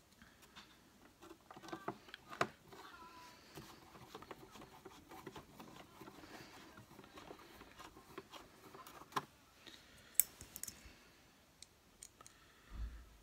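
Faint, scattered clicks and scrapes of a screwdriver and plastic vacuum cleaner parts being handled as the housing is screwed back together, with a few louder clicks at irregular intervals.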